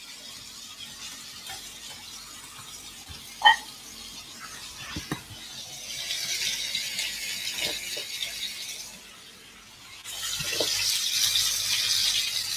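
Chicken frying in oil in a pan, a steady sizzle that comes in about six seconds in, drops away for a moment near nine seconds and returns louder. A few sharp knocks and clicks come before it.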